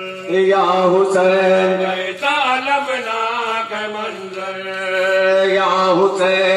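A man chanting a Muharram elegy (kalam) about Husain into a microphone, in long drawn-out held notes that waver in pitch, breaking for breath about two seconds in and again near the end.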